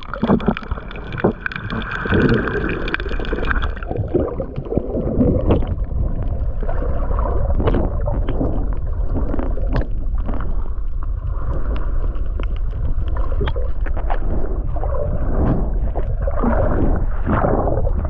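Water rushing and gurgling around a camera held under water, heard muffled, with many scattered clicks and knocks. A steady high whine of several tones runs through the first four seconds, then stops.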